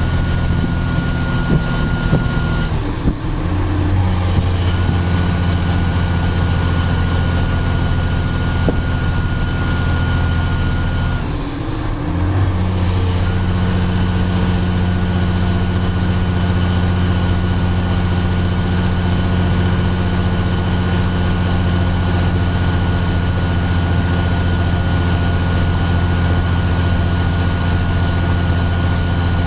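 Diesel engine of a Kenworth logging truck pulling steadily under a heavy log load, with a deep, even drone. The engine note breaks and resettles twice, about 3 and 12 seconds in, as the driver changes gear.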